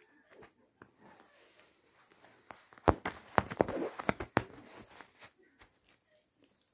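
A cat scuffling on a duvet as it bats and bites at a thin wooden stick: soft rustling, then a run of sharp clicks and scuffs about three to four and a half seconds in, the first the loudest.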